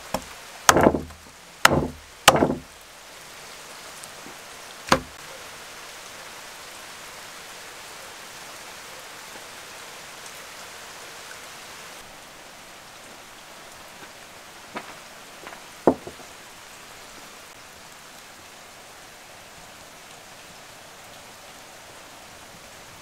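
Meat cleaver chopping through roast lamb on a steel board: four heavy chops in the first five seconds. After that a steady hiss, with two smaller knocks about two-thirds of the way in.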